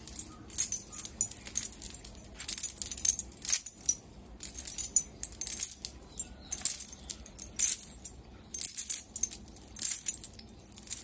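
Lead bead sinkers along the rim of a nylon cast net, about three kilograms of them, jangling and clinking in irregular bursts as the net is gathered up and shaken in the hands.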